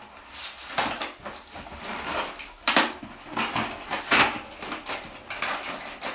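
Cardboard box and its cardboard packing insert being handled and pulled apart: irregular rustling and scraping, with a few louder scrapes partway through.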